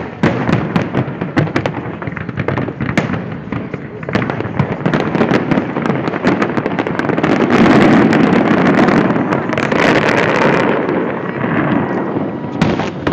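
Aerial fireworks display: a dense, rapid barrage of bangs and crackles, swelling into an almost continuous loud rumble of explosions about halfway through before thinning out again.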